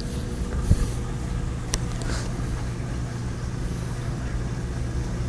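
Saltwater aquarium sump equipment running: a steady low hum from the protein skimmer and pumps, with one sharp click a little under two seconds in.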